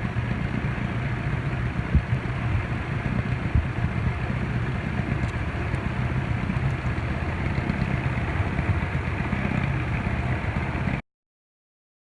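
Boat outboard motor running steadily at low speed, with its rumble and water noise; it cuts off abruptly near the end.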